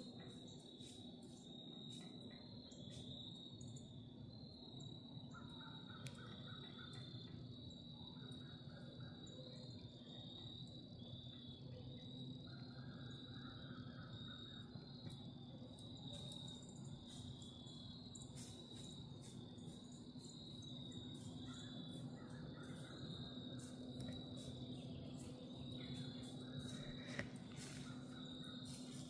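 Crickets chirping steadily in a high, continuous pulsing chorus, with a second, lower insect trill coming and going in bursts about a second long. A faint steady low hum runs underneath.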